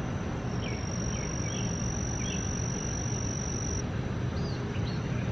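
An insect's high, steady trill, one unbroken note that starts about half a second in and stops just before four seconds, over a steady low outdoor rumble with a few faint short chirps.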